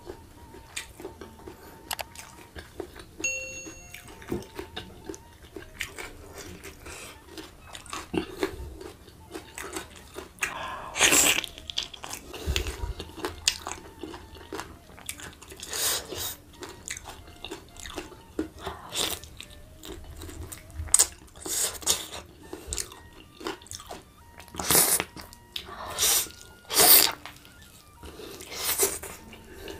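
Chewing and biting sounds of a person eating rice and chicken rendang by hand. A run of small mouth clicks is broken by louder bites every few seconds in the second half.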